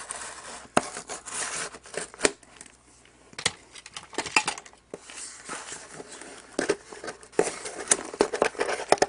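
Scissors snipping along the seam of a small cardboard box, then the cardboard being pulled and scraped open by hand, with papery rustling and several sharp clicks.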